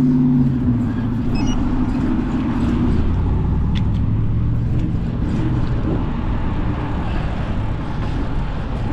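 Passing road traffic: a motor vehicle's engine hum fades out about three seconds in, leaving steady road noise.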